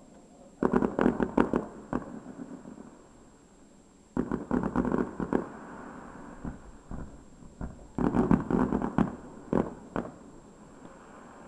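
Aerial fireworks shells bursting: three volleys of rapid bangs and crackling, about a second in, around four seconds and around eight seconds, with two single bangs near the end.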